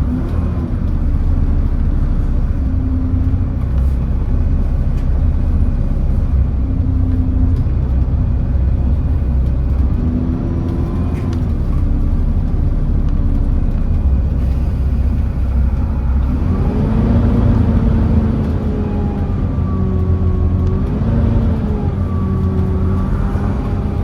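Volvo B7TL double-decker bus's Volvo D7C six-cylinder diesel engine and ZF Ecomat automatic gearbox heard from on board while under way: a steady low rumble, with the engine pitch rising and falling as the bus pulls away and changes gear, around ten seconds in and again from about seventeen seconds on.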